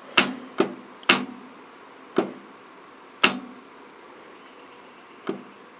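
Sharp knocks, about six at uneven intervals, each with a short ring, as a Kohler Command Pro V-twin crankshaft is shoved back and forth by hand to its end stops, moving through its end play.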